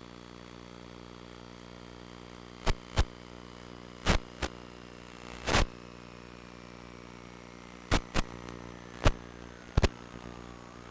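Small FPV quadcopter's motors and propellers running steadily, with a high whine falling slowly in pitch. About ten sharp knocks or pops break in, in pairs around three, four and a half, eight and ten seconds in.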